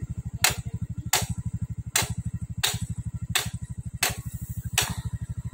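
A motorcycle engine idling steadily, with seven sharp metallic clicks about every 0.7 seconds from hand work at the rear drum-brake arm of a motorcycle whose brake has failed.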